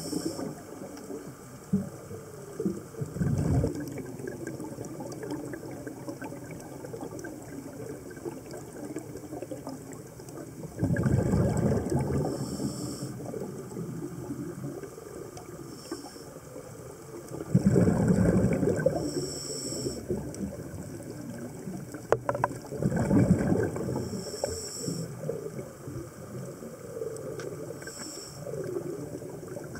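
Scuba diver breathing through a regulator underwater: bubbles rumble out in a loud gush on each exhale, roughly every five to six seconds, with short high hisses between.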